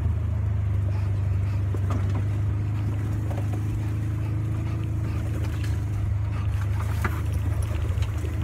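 Engine of an open off-road side-by-side vehicle running steadily while driving, a loud low drone with scattered small rattles and clicks over it.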